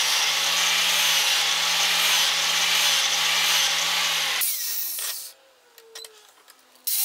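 Angle grinder grinding the steel back of a plane blade in light passes to hollow it. The motor hum is steady under loud grinding noise until about four and a half seconds in, when the disc comes off and the grinder winds down with a falling whine. The same kind of loud noise starts again just before the end.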